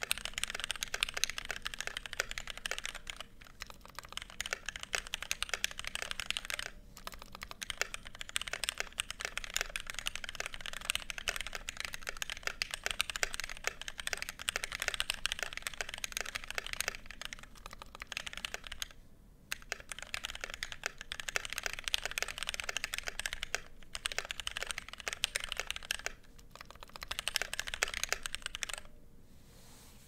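Fast typing, about 122 words a minute, on a KBD67 MkII mechanical keyboard with lubed Gateron Yellow linear switches and doubleshot ABS keycaps: a dense stream of keystroke clacks with brief pauses every few seconds, stopping shortly before the end.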